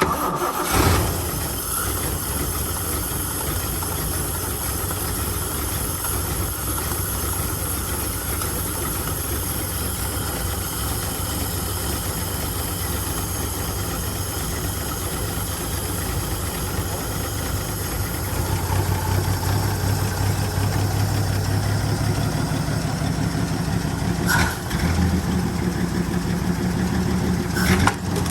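1980 Toyota Land Cruiser FJ45's inline-six petrol engine running steadily. About two-thirds of the way through it gets louder and deeper, and it dips briefly twice near the end.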